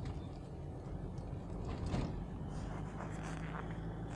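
Steady low engine and road rumble heard inside a moving car's cabin, with a brief rustle or click about two seconds in.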